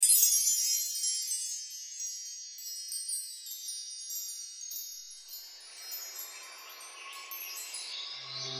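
Chimes ringing, many high shimmering tones struck together, loudest at the start and slowly fading, with a few more strikes along the way. A soft swell of noise comes in about halfway through.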